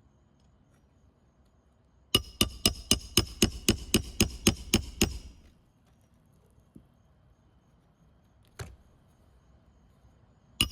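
A hand hammer drives a roofing nail through an asphalt shingle in a quick run of about fifteen ringing strikes, roughly five a second, fastening a replacement shingle. A single knock follows a few seconds later, and another run of strikes begins at the very end.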